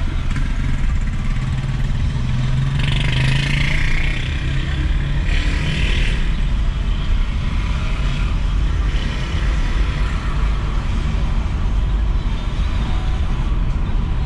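Car driving through town, heard from inside the cabin: a steady low rumble of engine and tyres, with two short higher-pitched noises about three and five seconds in.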